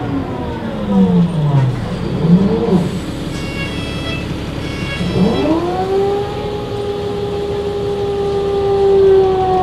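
Loud gear whine from a bus's ZF six-speed automatic gearbox behind a CAT C7 diesel, heard from inside the bus. The whine falls in pitch as the bus slows, briefly wavers and fades, then about five seconds in climbs sharply as the bus picks up speed and settles into a steady high whine.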